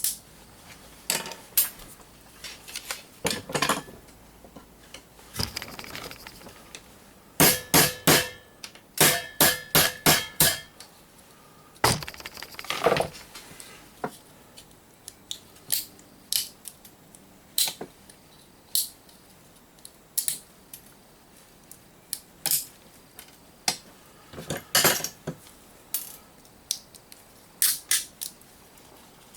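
Irregular clicks, snaps and metallic clinks of a plastic surge protector being pulled apart by hand with tools, freeing its small copper and brass contacts. About a quarter of the way through comes a quick run of ringing metal clinks.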